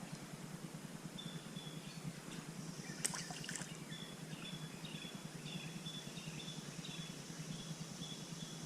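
Creek water running and trickling, a steady low rush, with a series of short high notes repeating through it, like a small bird calling.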